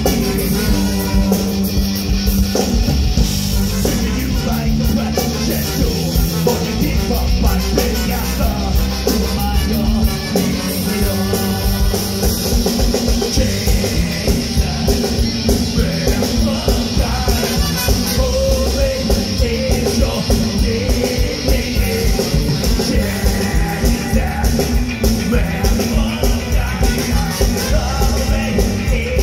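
Rock music with a drum kit keeping a steady beat and a singing voice.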